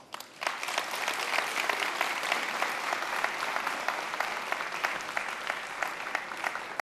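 Audience applauding: many hands clapping together, rising within the first half-second and holding steady. It cuts off suddenly near the end.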